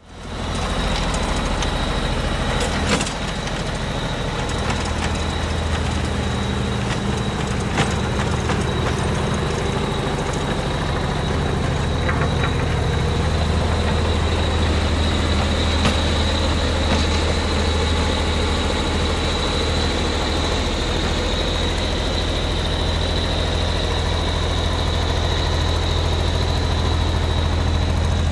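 Diesel engine of a 2003 Vögele Super-Boy asphalt paver running steadily, with a constant high-pitched whine over it and a few sharp clicks.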